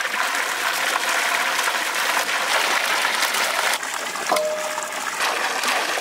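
Water gushing steadily from a pipe outlet and splashing onto wet ground and into a steel bowl while cut turkey pieces are rinsed by hand under it. A short ring sounds about four seconds in.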